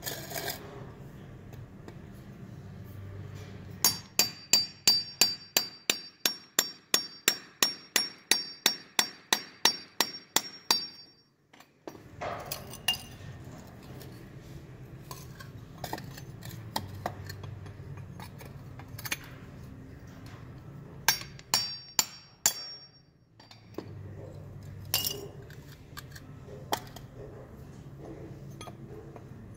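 Steel chisel chipping a plaster mold off an aluminium casting. About four seconds in comes a quick run of about twenty sharp metallic strikes, about three a second, with a high ringing. After that come scattered lighter taps and a few sharper strikes.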